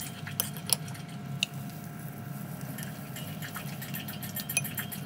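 Metal spoon clinking against a bowl and a mini waffle maker's plate as thick batter is scooped and spread, a few sharp clinks in the first second and a half, then lighter ticking. A steady low hum runs underneath.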